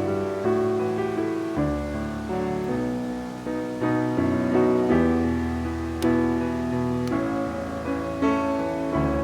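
Background piano music: a gentle melody of struck notes over low bass notes.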